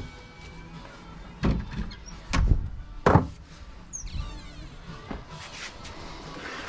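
Handling noise in a workshop: three heavy thumps about one and a half, two and a half and three seconds in as objects are moved about and set down on the workbench, with lighter knocks and rustling between.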